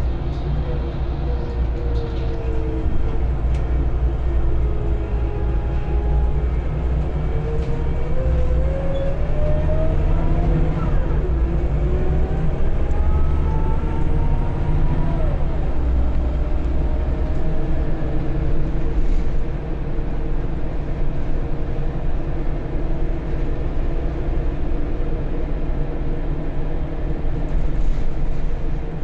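Scania L94UB bus's rear-mounted diesel engine running steadily, heard inside the passenger saloon, as the bus drives. In the middle a drivetrain whine rises in pitch several times as the bus picks up speed.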